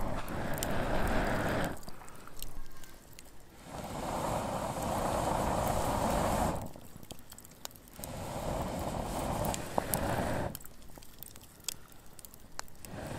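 Wood embers in a campfire pit crackling with scattered sharp pops, over a rushing noise that swells and fades away about every four seconds.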